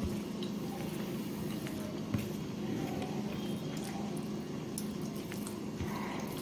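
Fingers mixing and squishing cooked rice on a steel plate, with scattered faint clicks of fingers against the plate, over a steady low hum.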